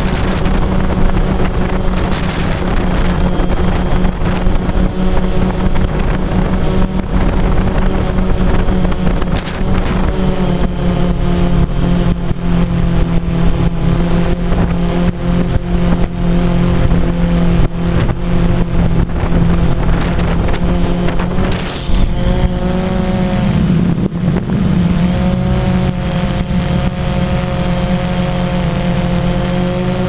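DJI Phantom quadcopter's motors and propellers humming steadily, picked up by the onboard camera, with wind buffeting the microphone. The hum's pitch shifts about ten seconds in and again a little past twenty seconds.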